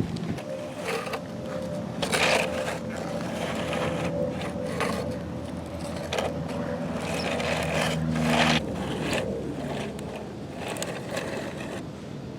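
Scraping and grating of toy construction trucks dragged through dirt and rocks, several times, over a steady motor hum that drops in pitch and fades a little after eight seconds in.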